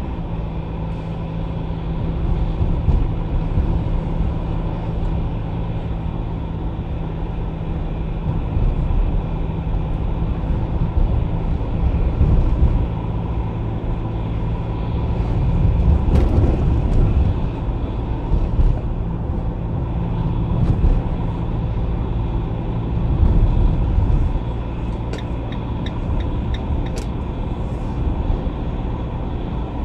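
Car engine and tyre noise heard from inside the cabin while driving, a steady low rumble that swells briefly a couple of times as the car picks up speed.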